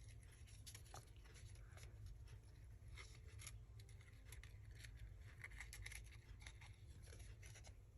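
Faint paper handling: quiet rustles and small ticks as paper hinge pieces are pushed through card tags, over a steady low hum.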